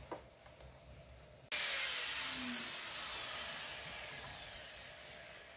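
A sudden loud hiss that sets in about a second and a half in, with a falling whistle over it, and fades away over about four seconds.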